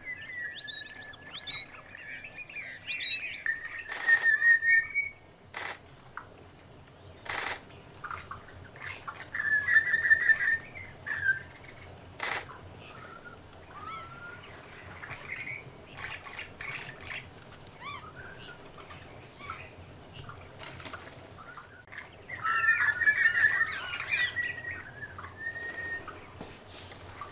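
Several birds calling: bursts of rapid trilled phrases and short rising whistles, loudest in three spells. A few sharp clicks stand out between them.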